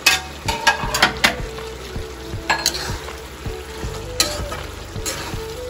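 Metal spatula stirring eel curry with curry leaves in a kadai over the sizzle of frying. Several sharp clinks of the spatula against the pan come close together in the first second or so, with single ones later.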